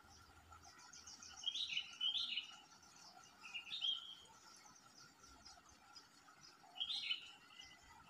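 Yellow-vented bulbul calling at its nest: three short bursts of bubbly, warbling notes, the first a quick pair and the last near the end. Fainter rapid high twittering runs beneath them.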